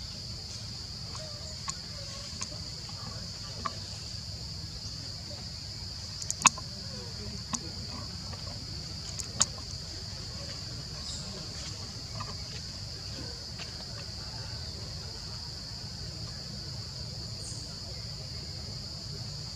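Steady high-pitched drone of forest insects, over a low steady rumble. It is broken by a few sharp clicks, the loudest about six and a half and nine and a half seconds in.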